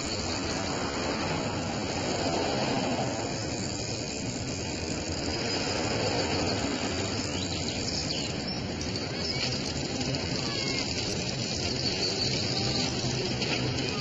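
Steady outdoor background noise, with a few faint chirps like birds about two-thirds of the way through.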